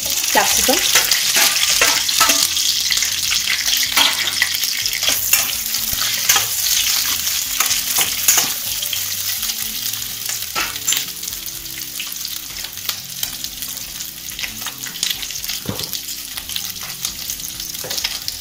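Chopped onion and capsicum sizzling in hot oil in a wok, loudest just after they go in and settling down over the following seconds, with scattered crackles.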